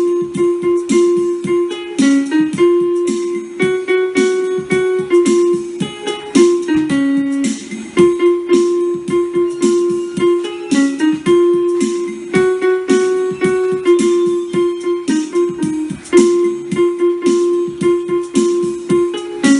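Background music: a bright melody of quick, evenly paced plucked notes with a light keyboard part.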